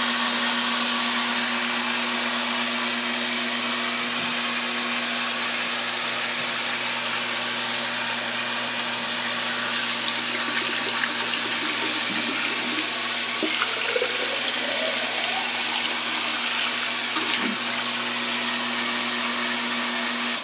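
A half-horsepower electric water pump running steadily with a hum, under water rushing through the hydrogen bubbler's outlet. From about ten seconds in to about seventeen, a louder hiss as the nozzle's jet sprays into the bathtub.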